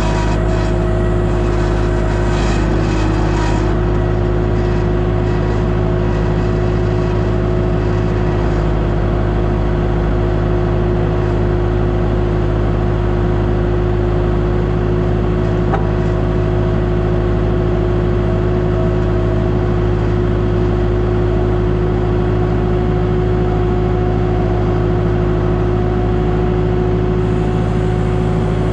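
Engine of a piece of compact construction equipment running steadily at a constant speed, with a steady drone and a few fixed tones and no revving.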